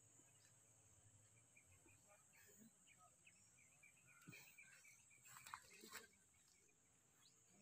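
Near silence: faint outdoor field ambience with a steady high hiss and scattered faint chirps, and a few soft clicks about five to six seconds in.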